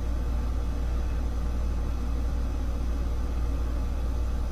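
A steady low hum, unchanging throughout, with no other distinct sound standing out.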